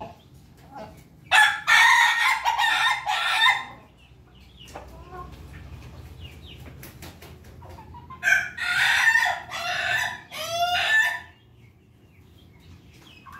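Roosters crowing: two long crows, one starting about a second in and one about eight seconds in, each lasting two to three seconds. Softer clucking runs in between.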